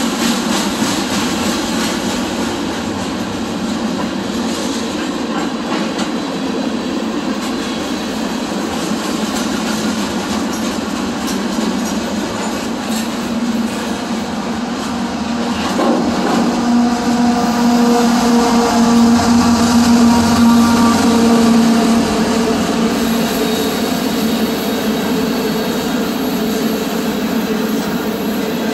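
CSX freight cars rolling past at close range, with steady wheel-on-rail rumble and clatter. About halfway through, a steady whining squeal joins in and lasts several seconds, the loudest part.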